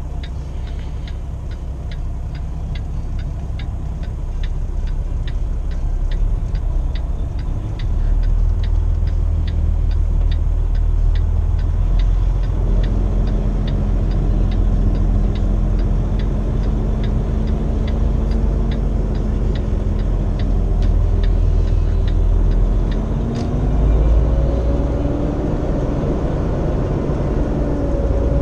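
Turn signal clicking at a steady two to three ticks a second inside a 2015 Kenworth T680's cab, over the steady rumble of the truck's diesel engine and road noise. The clicking fades out about halfway through, and the engine note climbs near the end.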